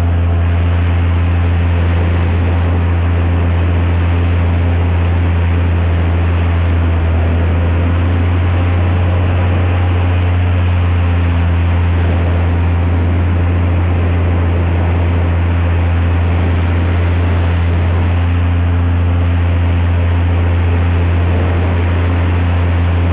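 Airboat's Lycoming aircraft engine and propeller running at a steady speed, a loud, unbroken deep drone.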